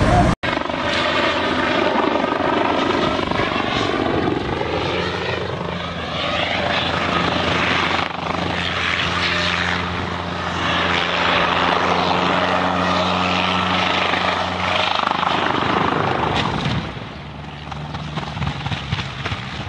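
Helicopter flying low past, its rotor and engine whine rising and falling in pitch as it passes. The sound drops off suddenly about seventeen seconds in.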